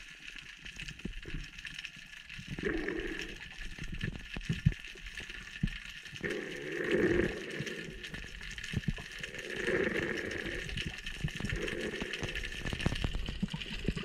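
Underwater sound heard through an action camera's waterproof housing: many scattered sharp clicks and crackles over a steady hiss, with a muffled whooshing swell every few seconds.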